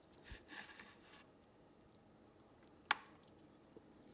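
Faint scraping and squishing of a knife and fork working through a grilled chicken wing, with one sharp click about three seconds in.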